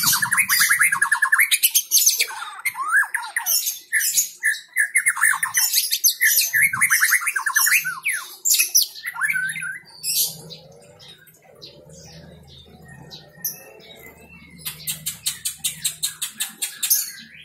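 White-rumped shama singing: loud, rapid trills and gliding whistles for the first ten seconds or so, then quieter scattered notes, and a fast rattling series of sharp notes near the end.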